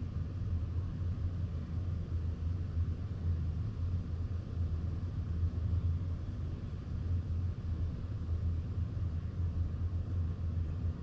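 Honda Grom 125's single-cylinder four-stroke engine running steadily, a low, even rumble with no change in pitch.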